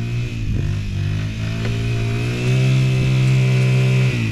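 Kawasaki 50 youth ATV's small engine running as the quad drives toward the camera through rutted snow, its pitch wavering with the throttle. About two and a half seconds in it revs higher and louder for over a second, then eases off near the end.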